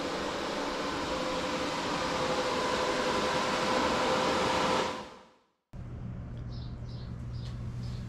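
Steady whirring machine noise with a constant hum in it, fading out about five seconds in; after a short gap, a quieter low electrical hum.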